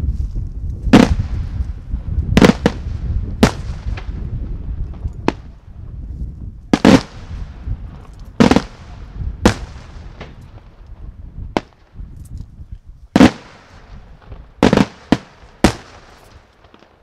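Daytime fireworks: aerial shells bursting overhead in a string of sharp, loud bangs at irregular intervals, mostly about a second apart, some in quick doubles. A low rumble lies underneath during the first half and fades away.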